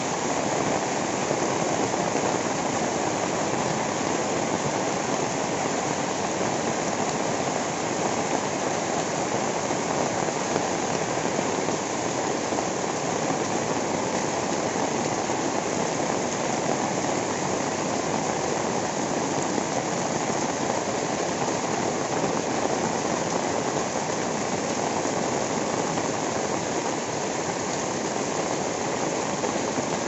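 Heavy rain falling steadily on a waterlogged paved lane, the drops splashing into the standing water.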